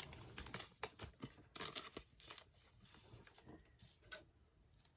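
Faint crinkling of thin plastic card sleeves and small clicks as trading cards are handled and slid into them, busiest in the first half and dying away near the end.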